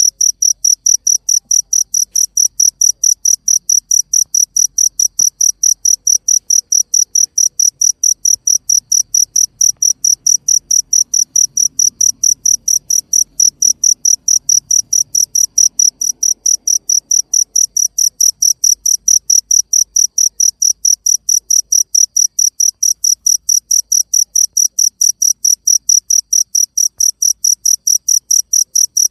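A cricket chirping steadily: an even, fast train of high-pitched chirps, several a second, without a break.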